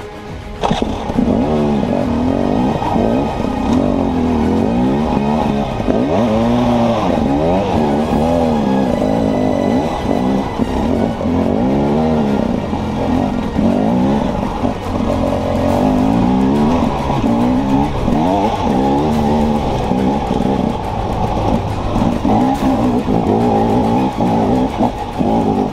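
Enduro dirt bike's engine heard close from on board, revving up and down continuously as the rider works the throttle over a rocky trail, its pitch rising and falling every second or two.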